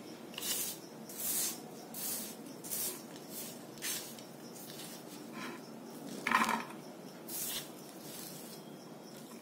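Fingers gathering small hand-cut rice-flour dough pieces off newspaper and dropping them onto a ceramic plate: a run of short, uneven rustles and scrapes, with light taps on the plate.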